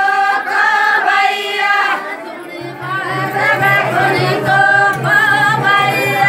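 A group of women singing a Gor Banjara folk song together as they dance, several high voices in unison.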